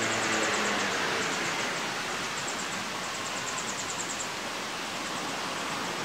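Steady rush of running water, with a few short runs of high, fast ticking trills, the longest between about three and four seconds in.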